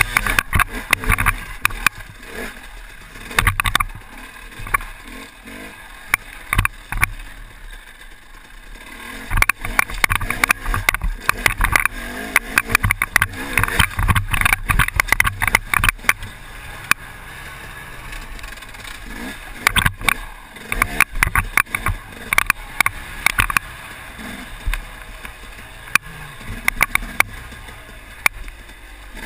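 KTM 250 EXC two-stroke enduro motorcycle ridden over rough dirt trails, heard through a helmet-mounted camera. The engine runs under wind buffeting and constant knocks and rattles from the bumps, easing off in a couple of quieter stretches.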